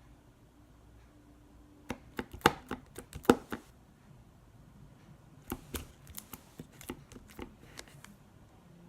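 Sticky slime being squeezed and pulled by hand, giving sharp wet clicks and pops in two bursts, the first about two seconds in and the second about five and a half seconds in. The slime is too sticky, not activated enough.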